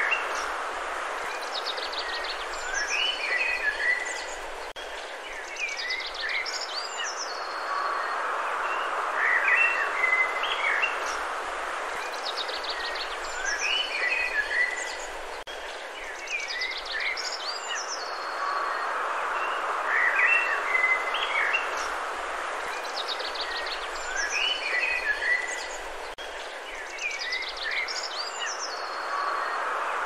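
Several birds chirping, trilling and giving short sweeping high calls every second or two over a steady hiss of outdoor ambience that swells and eases every few seconds.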